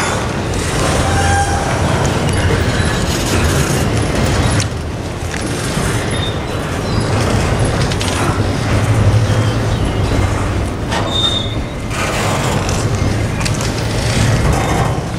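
CSX double-stack container well cars rolling slowly past on steel rails: a steady rumble of wheels on track, with brief wheel squeals about a second in and again near eleven seconds.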